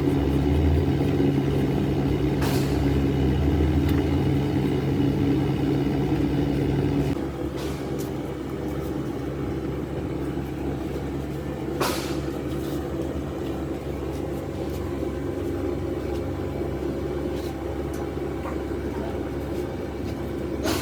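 Machinery running steadily with a low hum. About seven seconds in the hum stops, leaving a quieter rumble, and two sharp clicks come through.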